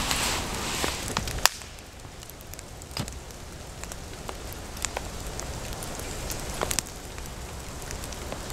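Wood fire crackling in a small box stove, with scattered sharp pops and ticks over a faint hiss. A louder, steady noise fills the first second and a half, then cuts off abruptly.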